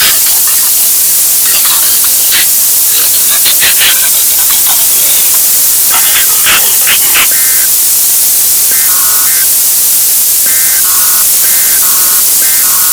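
Loud broadcast static hiss, broken by scattered crackles, with short electronic beeps stepping between a higher and a lower pitch in the second half.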